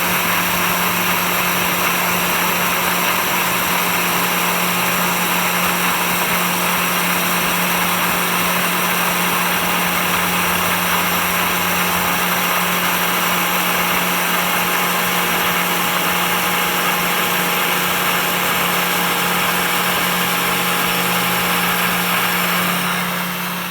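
CNC 3018 Plus desktop router at work with its dust-extraction suction running: a steady machine drone with a strong low hum under a wide hiss, fading out near the end.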